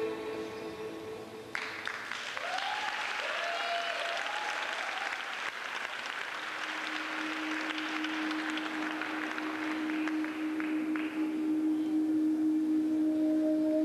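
Audience applauding: the clapping starts suddenly about a second and a half in, just as the held tones of the music stop, and fades out near the end. A steady low held tone of the dance score comes in about halfway and sounds under the clapping.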